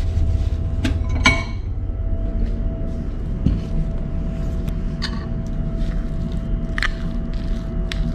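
Steady low hum of the ship's machinery with a constant tone in it. A sharp clack with a short ring comes about a second in, then a few light clinks of a metal spoon against a glass bowl as instant noodles are stirred.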